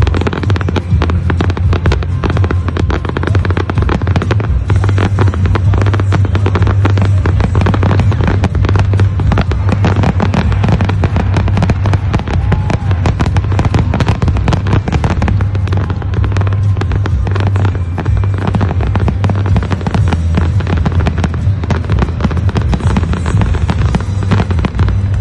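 Fireworks display going off in a dense, unbroken barrage of bangs and crackles over a deep rumble.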